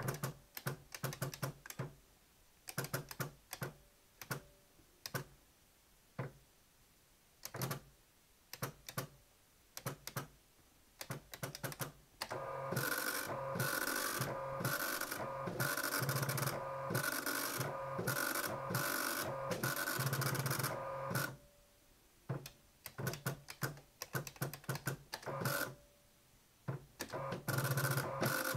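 Teletype Model 43 dot-matrix teleprinter typing and printing. For about twelve seconds there are separate clicks of keys and single characters printing. Then comes a long unbroken run of the print head printing lines of output for about nine seconds, more scattered clicks, and another short run of printing near the end.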